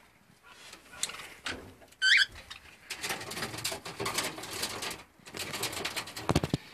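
Caged cockatiels and other small parrots calling. One loud whistled chirp comes about two seconds in, followed by dense, scratchy chattering with a short break about five seconds in.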